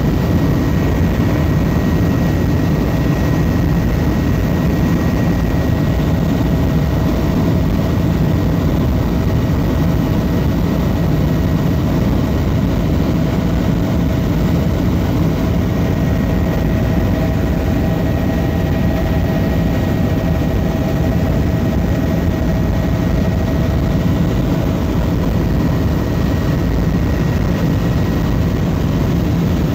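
Helicopter in cruising flight, heard from inside the cabin: a loud, steady rotor and engine rumble with a faint steady whine over it.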